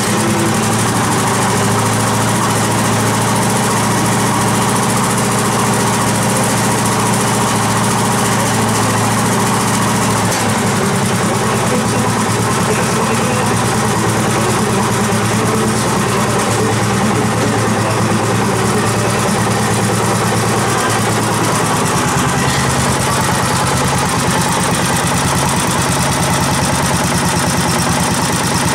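Garden tractor's engine, running on LPG, idling steadily just after starting, its running note shifting about ten seconds in and again about two-thirds of the way through.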